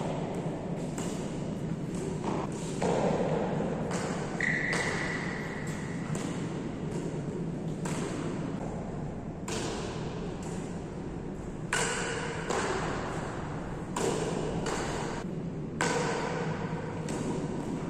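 A series of sharp knocks and thuds about once a second at uneven intervals, several with a brief ringing tone, over a steady low background noise.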